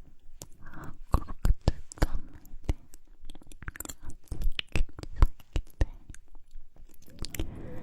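Close-miked ASMR mouth sounds: a quick, irregular run of sharp lip smacks and tongue clicks, with a few short breathy stretches between them.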